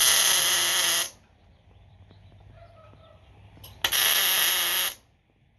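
Electric arc welding on thin sheet steel: two short welds about a second each, one at the start and one a little before four seconds in, each a loud steady crackling hiss that starts with a sharp snap as the arc strikes and stops abruptly. The welds join new steel corner pieces onto a rusted 4x4 post base.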